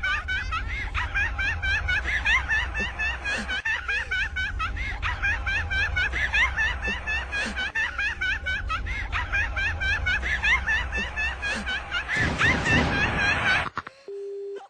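A cacophony of many people laughing at once: overlapping, layered snickering and laughing over a low steady hum. Near the end the laughter cuts off abruptly and a brief steady tone sounds.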